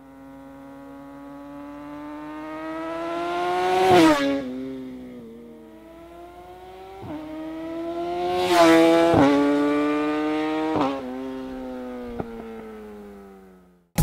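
Yamaha R6's inline-four engine through a Yoshimura Alpha-T full titanium exhaust, ridden by at speed. The engine note climbs to a loud peak about four seconds in and drops in pitch, swells again to a second loud peak around eight to nine seconds with further drops in pitch, then fades away near the end.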